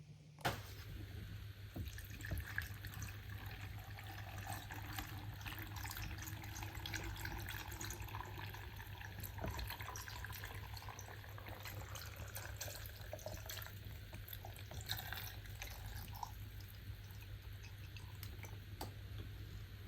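Water running from a kitchen tap into a sink, with splashing and small knocks and clicks of things being handled under it; it starts suddenly about half a second in.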